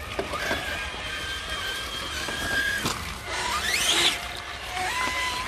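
Electric motors of RC crawler trucks whining as they drive up a muddy slope. A steady high whine cuts off suddenly about three seconds in, then a quick rising whine comes as a motor speeds up, and a lower steady whine starts near the end.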